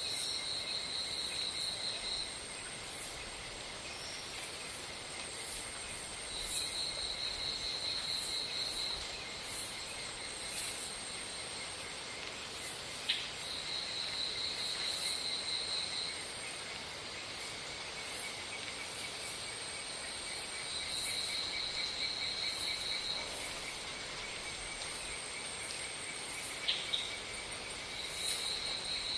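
Tropical insect chorus: a steady high-pitched buzzing, with a rapid pulsing trill of two to three seconds that comes back about every seven seconds. Two brief sharp clicks are heard, one about halfway through and one near the end.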